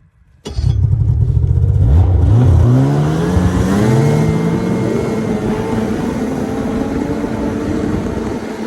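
Snowmobile engine starting loud. Its pitch rises as it accelerates about two seconds in, then it runs steadily at speed.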